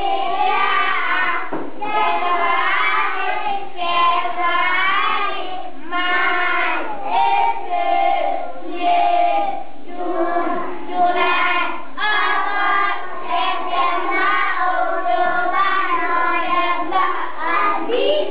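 A class of young schoolchildren singing a song together.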